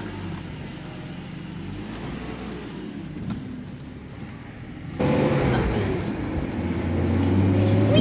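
BMW M54 inline-six engine running with a steady low hum; about five seconds in it becomes suddenly louder.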